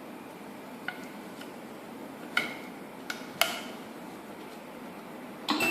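Pneumatic pad printing machine at work: a handful of sharp metallic clicks and clacks at irregular spacing over a faint steady hiss, with a louder clatter starting near the end.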